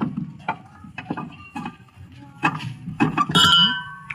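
A series of sharp metal clinks and knocks from tools and metal parts being handled during washing-machine repair work, several leaving a brief ringing tone; the loudest cluster comes about three seconds in.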